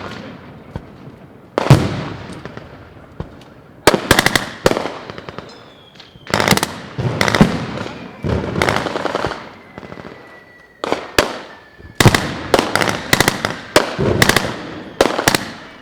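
Machine guns firing blanks in bursts of rapid sharp reports, a burst every two seconds or so, each trailing off in echo.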